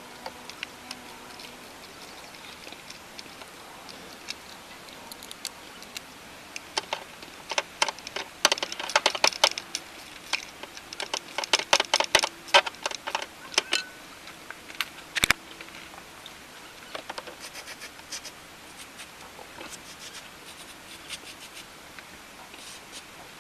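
Irregular clicking and clattering of hard plastic and metal parts being handled and fitted in a car's engine bay, thickest in the middle stretch, with one sharp knock partway through and a few lighter ticks near the end.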